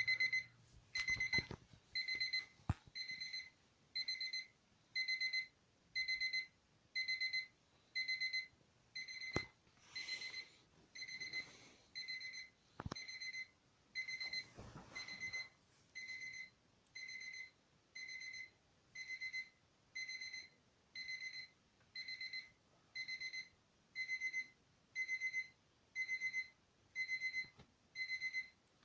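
Alarm clock's electronic alarm sounding: a high-pitched beep pulsed in short bursts of rapid beeps, about one burst a second, with a few faint knocks and rustles of handling.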